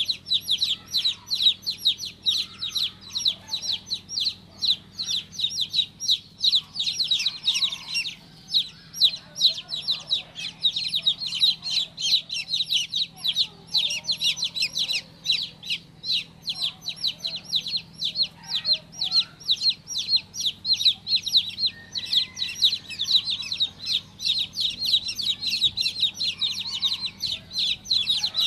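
Baby chicks peeping without pause: a rapid stream of short, high-pitched calls, several a second.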